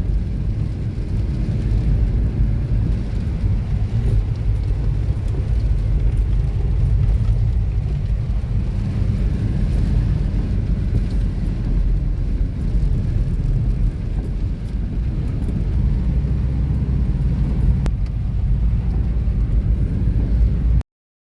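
Steady low rumble of a vehicle running, engine and road noise, which stops abruptly near the end.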